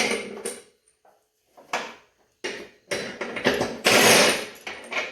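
A 7/8-inch socket tool working the top nut off a lawn mower deck spindle, in several short bursts of mechanical rattling with pauses between them.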